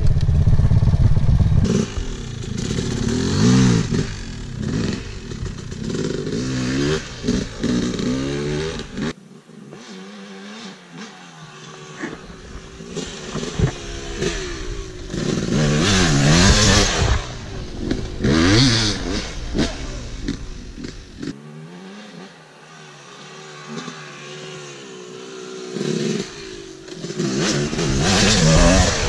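Kawasaki KLX dirt bike's single-cylinder four-stroke engine revving up and down as it rides a dirt trail. The pitch climbs and drops again and again, and it goes quieter twice where the throttle eases off.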